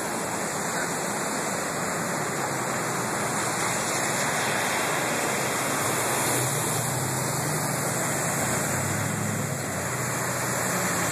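Steady rushing splash and spray noise of cars driving through deep street floodwater. A car engine's hum rises in the middle as a car ploughs through, throwing up spray.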